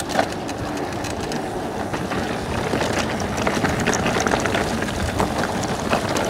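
Mountain bike rolling over a stony dirt trail: tyres crunching on loose gravel and leaves, with a constant rattle and many small knocks from the bike over the bumps.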